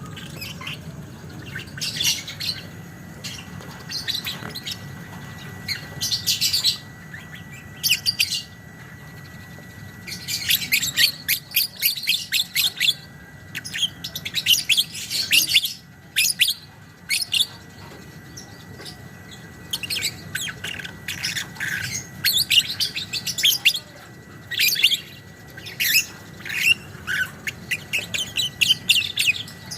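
Lovebird singing its rapid, chattering 'ngekek' trill in repeated bursts, the longest lasting about three seconds.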